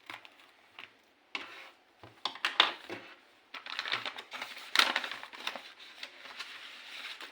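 Packaging of a blind bag being opened by hand: irregular crinkling, rustling and crackling.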